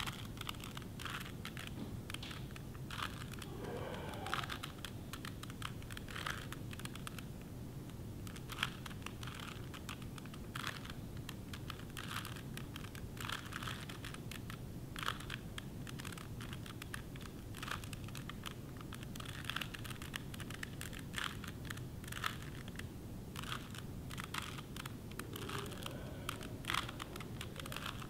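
A 3x3 Rubik's Cube being twisted by hand: its plastic layers turn with quick, irregular clicks and clacks, several in a row, then a short pause, over and over.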